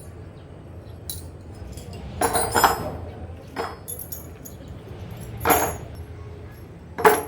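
Metal hand tools clinking and clanking as they are handled and set down, in about five separate knocks; the loudest come a little over two seconds in and near the end.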